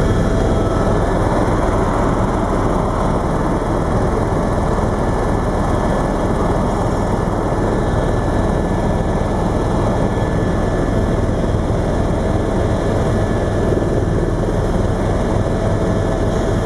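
Helicopter in flight, heard from inside the cabin: a loud, steady rotor and engine noise with a strong low rumble that holds even throughout.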